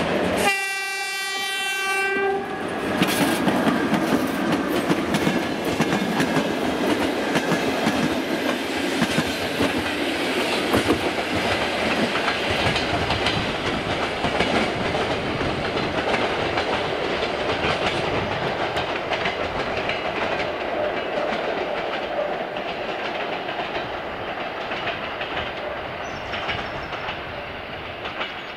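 A single train horn blast of about two seconds, then an EP1 electric locomotive and its passenger cars rolling past with wheels clattering over the rail joints, fading slowly near the end as the train moves away.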